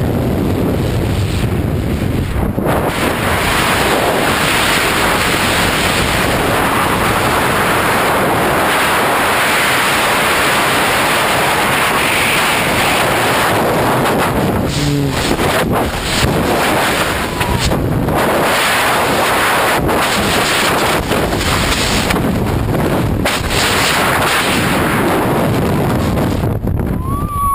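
Loud, steady wind roar buffeting the camera microphone, the rush of air in a skydiver's freefall.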